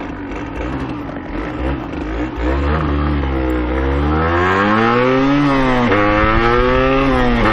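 1990 Yamaha DT125R's two-stroke single-cylinder engine accelerating under way. Its pitch climbs, drops sharply about six seconds in at an upshift, then climbs again.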